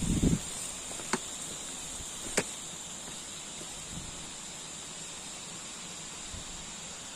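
Steady high-pitched chorus of insects in the mountain forest, broken by a low thump at the start and two sharp clicks about a second and two and a half seconds in.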